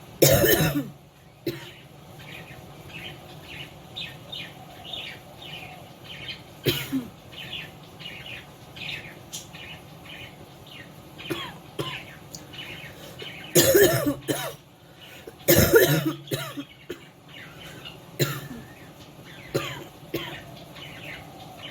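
A woman coughing in harsh fits: a loud cough right at the start, another about seven seconds in, and two loud ones close together past the middle, with smaller coughs between. It is a genuine cough from illness, not a forced one.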